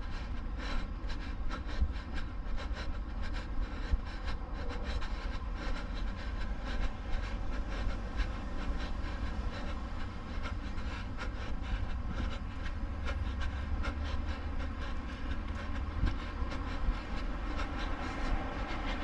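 A runner's quick, even footfalls on pavement, a few knocks a second, over a steady low rumble as the camera is carried along at a jog.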